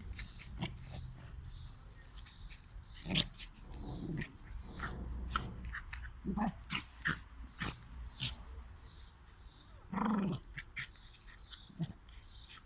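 Bichon puppy at play: short, scattered dog sounds among quick clicks and scuffles, the loudest burst about ten seconds in.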